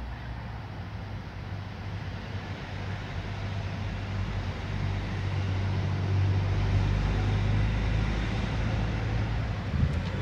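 Steady low hum of a motor vehicle engine running, growing louder about halfway through. A short knock of the phone being handled comes near the end.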